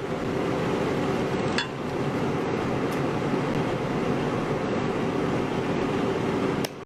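Steady hiss with a faint hum underneath, and a single light click of a metal tool, such as tweezers on the phone's parts, about a second and a half in.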